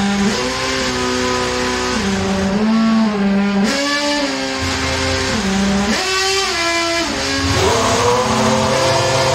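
Ferrari Formula 1 car's engine running in the garage, held at steady revs that step up and down every second or so, with a drop and climb in revs near the end.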